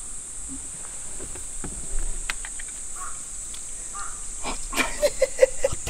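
A crow cawing, a quick run of about five caws near the end, over a steady high-pitched hiss, with a few light clicks.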